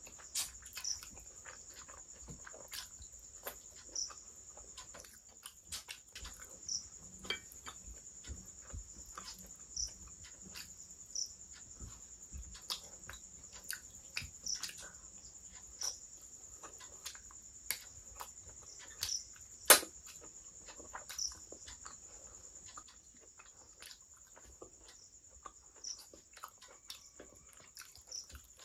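Eating by hand: chewing and mouth smacks, and fingers squishing and mixing curry and rice, heard as many short wet clicks, the loudest about two-thirds of the way through. Beneath them runs a steady high whine with a short chirp about every second and a half.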